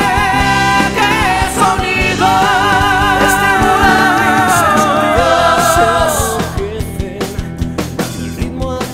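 Hard rock song with a singer holding a long note with vibrato over the band. About six seconds in the voice stops and the drums and guitars carry on alone, with steady drum hits.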